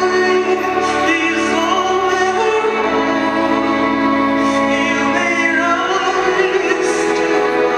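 A woman singing in a classical, operatic style into a microphone, with long held notes, over a live string orchestra of violins, cellos and double bass.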